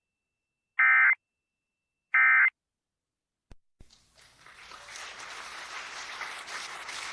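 Two short, loud bursts of Emergency Alert System SAME digital data, the end-of-message code that closes an alert test, a harsh warbling buzz about a second and a half apart. A click follows about three and a half seconds in, then a rising noisy hiss with crackles.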